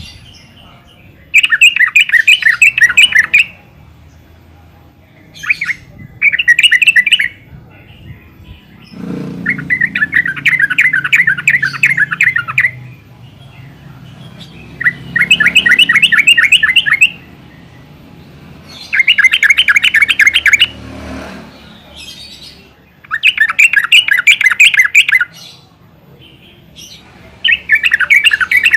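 Yellow-vented bulbul calling: loud bouts of rapid chattering notes, each about two seconds long, repeated every few seconds, about seven times.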